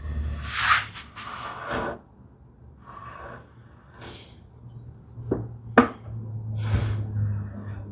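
Tools and wood being handled on a workbench: a string of short scrapes and rustles, with two sharp knocks about five and a half seconds in.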